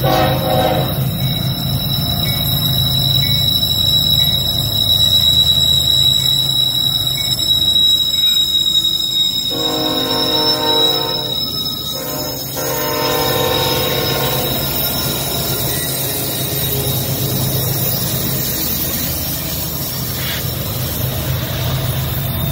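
Union Pacific freight train's diesel locomotives running past close by as they come out of a tunnel, with a steady low engine hum and a steady high wheel squeal. The horn sounds briefly at the start, then two longer blasts about ten seconds in.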